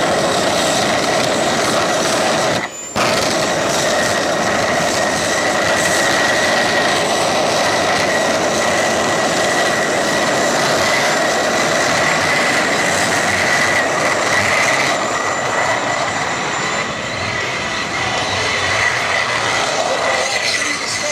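Homemade gas-turbine jet engine built from a truck turbocharger, running steadily: a high whine over a jet roar, with a brief break about three seconds in.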